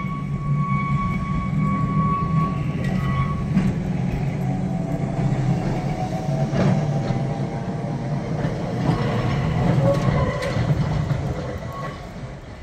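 A double-deck electric tram running past on street track: a steady low rumble of wheels on the rails with a rising and falling whine and a few sharp knocks. A steady high-pitched tone sounds for the first few seconds, and the sound fades as the tram moves away near the end.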